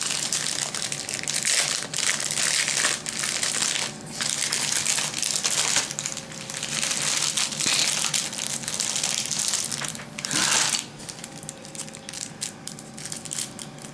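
Plastic packaging of new paintbrushes crinkling as it is handled and opened, in irregular bursts, going quieter for the last few seconds.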